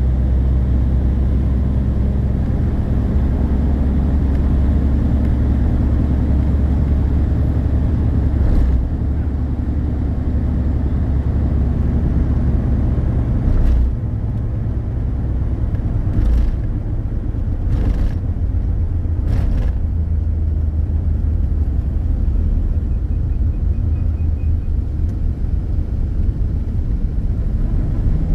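Steady low rumble of a moving road vehicle, with a handful of short knocks or bumps in the middle stretch.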